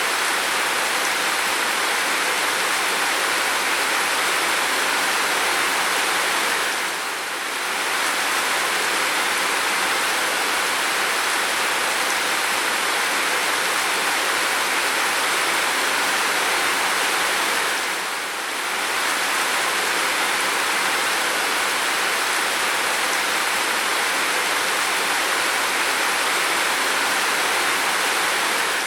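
Heavy rain falling steadily, an even, loud hiss that dips briefly about every eleven seconds.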